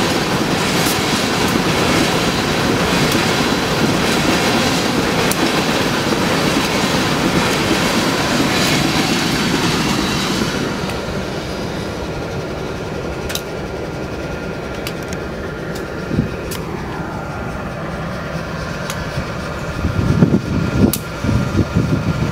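Freight cars of a passing Canadian Pacific train rolling by, wheels clicking over the rail joints, until the end of the train passes about ten seconds in. After that a quieter steady hum with a few sharp ticks, and bursts of wind buffeting the microphone near the end.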